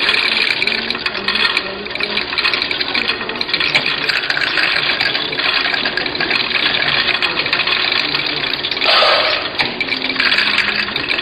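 Tablets clattering continuously on the spinning stainless turntable of a TC-4 tabletop tablet counter as it feeds them out to be counted into a bottle, a dense run of small hard clicks that swells briefly about nine seconds in.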